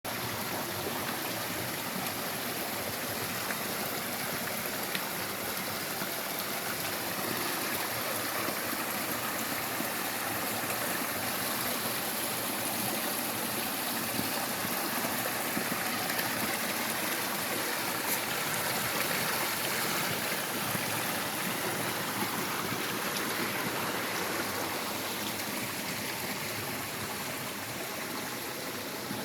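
A stream of running water, flowing steadily.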